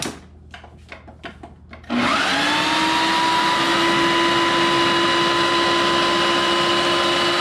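A few light knocks as the lid is fitted on the Ninja food processor jar. About two seconds in, the food processor's motor starts, its whine rising briefly as it spins up, then runs steadily and loudly, chopping raw spinach, broccoli, red pepper and egg.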